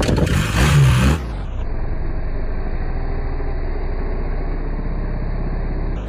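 BMW R1300 GS motorcycle's 1300cc boxer twin engine, revved hard in the first second, then running at a steady pitch.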